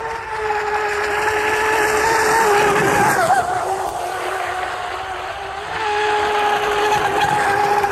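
Pro Boat Blackjack 42 RC catamaran running at speed: a steady high whine from its brushless electric motor over a hiss of water, the pitch wavering and dropping about three seconds in, then coming back strongly about six seconds in.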